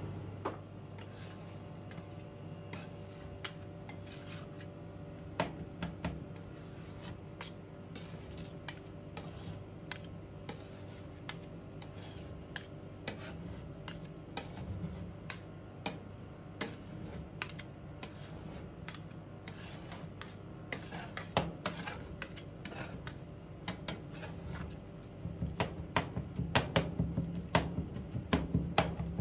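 Metal spatulas striking and scraping a stainless-steel ice-cream-roll cold plate as they chop a freezing ice cream mix. The taps are scattered at first and come faster and louder near the end, over a steady low hum.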